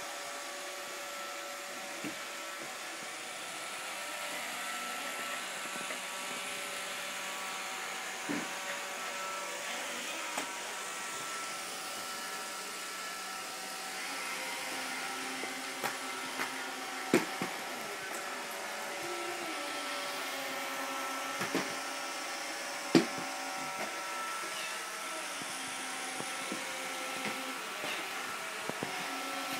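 Household vacuum cleaner running steadily with a constant motor whine, broken by a few sharp knocks and clicks.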